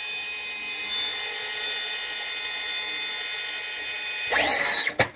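Holmes Hobbies Revolver brushless motor in an RC rock crawler, giving a steady high electric whine as the truck crawls slowly over a log. Near the end it rises in a short louder burst of throttle, then cuts off suddenly.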